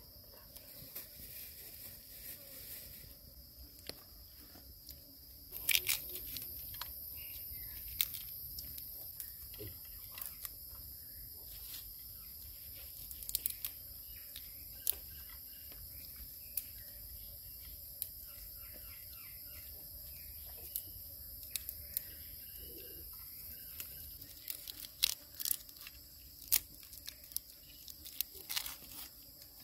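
Forest ambience with a steady high-pitched insect drone and occasional bird chirps, over which come scattered small clicks and crackles of dry grilled fish being torn apart by hand.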